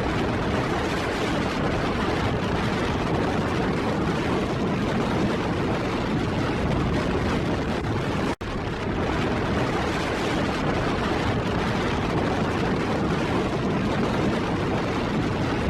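Strong wind rushing and buffeting the microphone in a steady dense roar, heaviest in the low end, broken by a momentary dropout a little past halfway.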